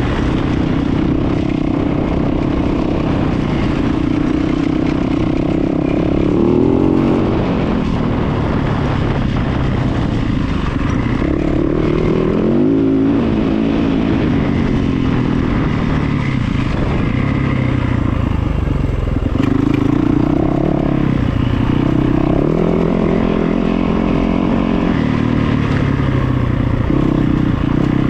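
An engine running steadily, its pitch rising and falling every few seconds as its speed changes.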